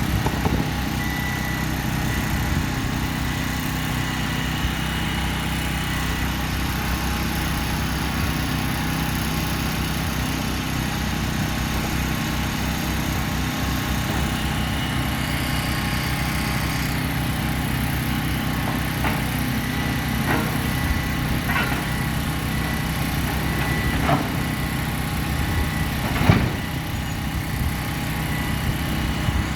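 Diesel engine of an excavator running steadily, with a few short knocks in the second half, the loudest near the end.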